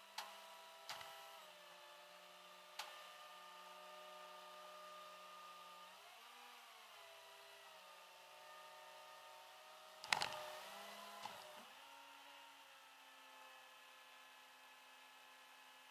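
Quiet, steady engine hum heard from inside a vehicle, its pitch shifting briefly about six seconds in and again about eleven seconds in. A few light clicks, and one sharper knock about ten seconds in.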